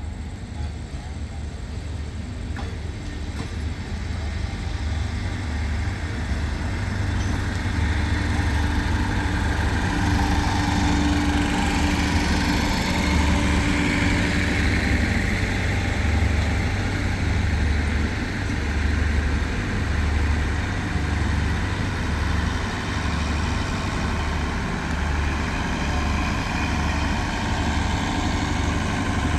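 Diesel-hauled passenger train arriving and rolling past close by: the engine's low throbbing grows louder over the first several seconds as the locomotive comes near, then the coaches keep up a steady rumble as they roll by.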